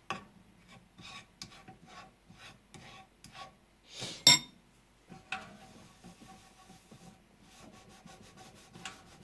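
Hand scrubbing baking-soda paste on a toaster oven's glass door: repeated back-and-forth rubbing strokes, about two a second at first and denser after the middle. One sharp knock a little past four seconds in is the loudest sound.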